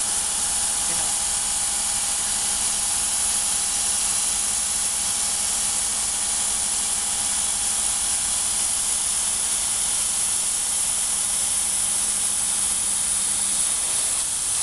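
Laser cutting machine cutting 5 mm leather: a steady hiss of rushing air from the machine, with a low steady hum under it that stops about a second before the end.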